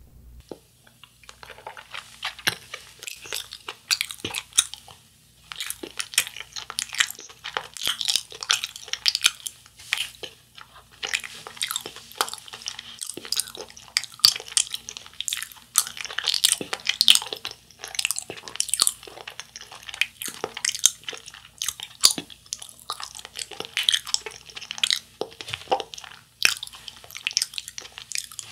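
Close-miked chewing of a Japanese wagashi sweet, with many sharp mouth clicks throughout.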